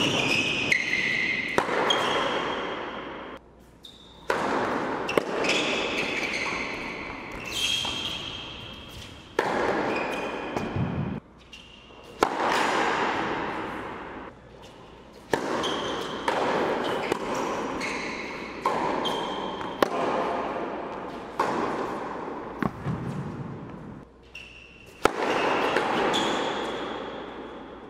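Tennis rally on an indoor hard court: sharp racket strikes and ball bounces every second or two, each echoing through the hall, with brief high squeaks of sneakers on the court.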